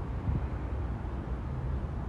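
Strong gusty wind buffeting the microphone: an uneven, low rumble that rises and falls.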